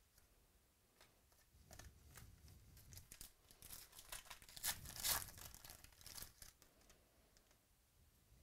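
Hands tearing open the foil wrapper of a 2017 Rookies & Stars football card pack: a run of crinkling and crackling that starts about a second in, is loudest around the middle and dies down near the end.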